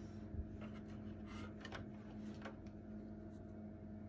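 Faint rustles and a few light ticks of braided cord being handled among the wiring, over a steady low hum.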